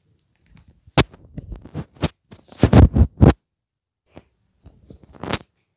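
Handling noise from a phone's microphone being rubbed and brushed by fingers and fabric: irregular scratching and muffled rumbling, heaviest about three seconds in, with a last brush near the end.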